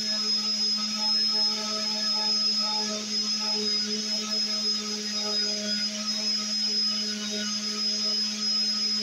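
Electric random orbital sander running steadily against a wooden chair leg, easing its edges and corners. A constant low motor hum with a thin, steady high whine over the hiss of the pad on the wood.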